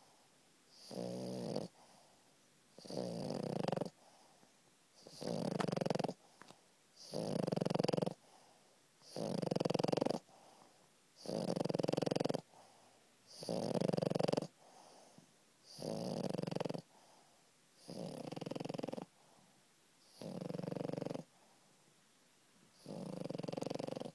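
French bulldog snoring loudly in her sleep: eleven long, even snores, one about every two seconds.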